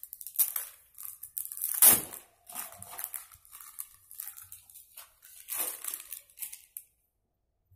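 Irregular rustling and crinkling as a T-shirt is handled, with one louder scrape about two seconds in; it stops about seven seconds in.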